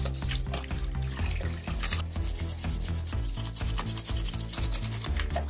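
A brush scrubbing the plastic housing of a disc grinder in soapy water, in quick, uneven back-and-forth strokes, over background music.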